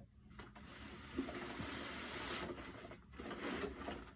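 Rustling and scraping handling noise as parts of an animated Santa figure are fitted together, loudest about two seconds in and easing off near the end.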